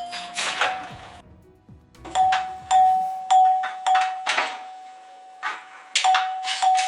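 AI-generated sound-effect previews playing back: a series of sharp strikes over a steady ringing tone, pausing briefly about a second in, then resuming in quick succession.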